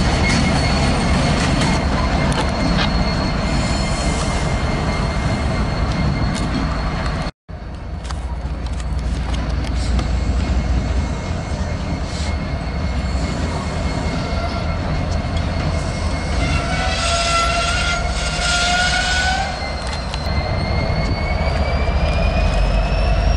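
Diesel locomotives running light engines, led by an EMD SD70ACe, with a steady low engine rumble and a thin steady squeal from the wheels. The sound cuts out for a moment about seven seconds in. Later a louder squeal rises slowly in pitch for about three seconds, and near the end a squeal glides upward as the locomotives work through the yard's curves.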